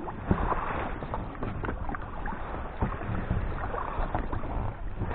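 Inflatable boat being rowed: oars working, with a few short knocks over a steady low rumble.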